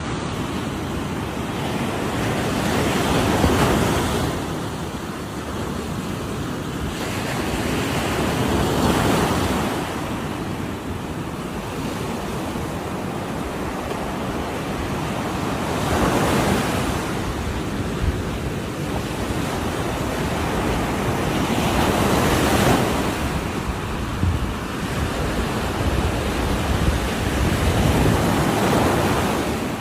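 Ocean waves breaking on a shore: a continuous wash of surf that swells into a louder crash every five to seven seconds, with some wind on the microphone.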